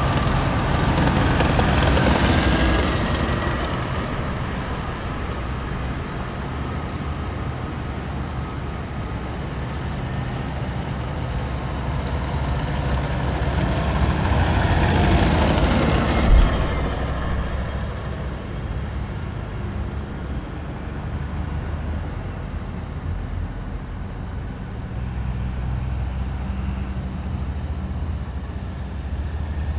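Heavy military vehicles driving past one after another, their engines running low and steady. Two vehicles pass closest, one about 2 seconds in and one about 15 seconds in, each swelling and then fading, with a short thump just after the second.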